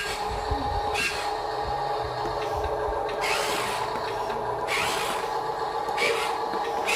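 Huina 1573 remote-control dump truck's electric motors and gears whining steadily as it drives, with several short, louder grinding surges.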